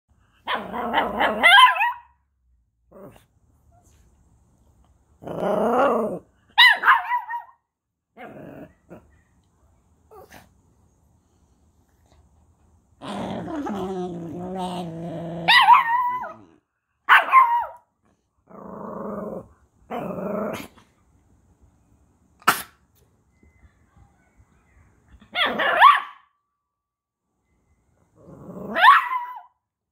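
Two small dogs, a miniature schnauzer and a chihuahua, 'talking' back and forth: short growly barks and yips with sliding pitch, in bursts separated by pauses, with a longer low growl about halfway through.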